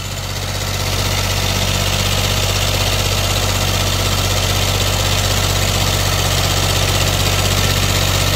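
Compact tractor engine running steadily as the tractor pulls an implement through the soil, a low even drone that grows a little louder over the first second.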